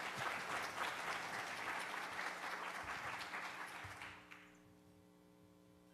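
Audience applauding, dying away about four seconds in and leaving a faint steady hum.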